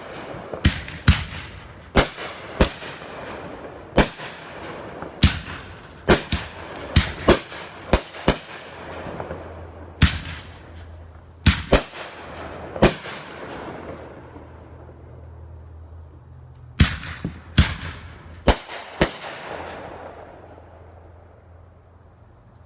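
Fireworks going off: a long irregular string of about two dozen sharp bangs, some in quick bunches, each trailing echo. The bangs pause about two-thirds of the way through, come again in a short burst, then stop near the end.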